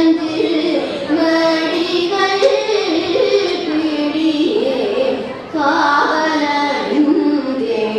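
Several women singing a devotional song together, accompanied by a harmonium, with a short break between phrases about five seconds in.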